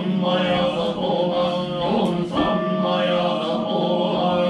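Shingon Buddhist sutra chanting: low male voices on a steady, nearly monotone pitch, with long held notes that shift at each new syllable.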